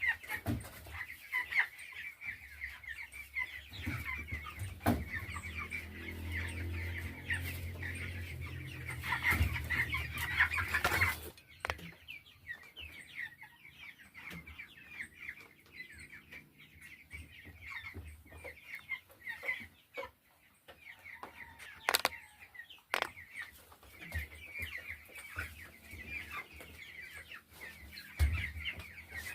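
A crowd of three-week-old chicks peeping and chirping without pause. A low hum sits under them from about 4 to 11 seconds in, and two sharp knocks come near the middle.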